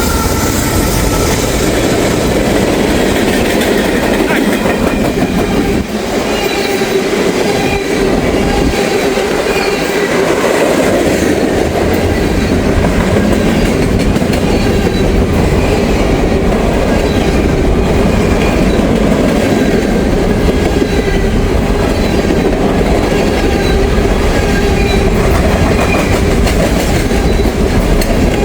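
Norfolk Southern freight train passing close by at speed, its railcar wheels rumbling and clattering steadily over the rail.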